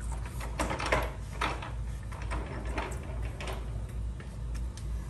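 A thin stream of used engine oil trickling from a Toyota Tundra's oil-pan drain hole into a plastic drain pan, with uneven splashing that is strongest in the first three and a half seconds, over a low steady rumble.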